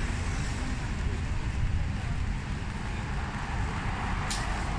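Rain falling in a city street: a steady hiss over a low rumble, with one sharp tick about four seconds in.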